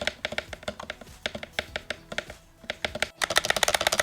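Keystrokes on a UNCTRL magnetic Hall-effect keyboard in a spacebar sound test, with separate presses a few tenths of a second apart. Just after three seconds in there is a brief break, then fast continuous typing.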